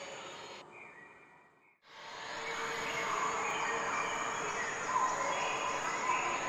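Outdoor ambience: a steady hiss with faint insect- or bird-like chirping. It dips almost to silence a little under two seconds in, then comes straight back.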